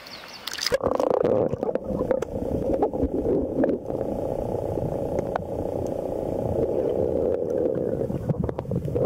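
Underwater sound of a river current heard through a submerged camera: a steady muffled rushing with scattered sharp clicks and knocks. It turns muffled suddenly when the camera goes under, about a second in.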